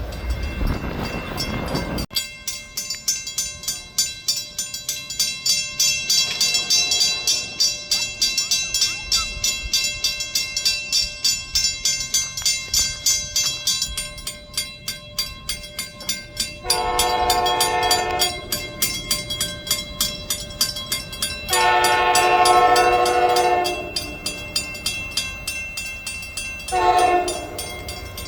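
A train passing close by, its wheels clicking rapidly and steadily over the rail joints. Its air horn sounds two long blasts, then a short one, with a further blast starting near the end: the grade-crossing horn pattern.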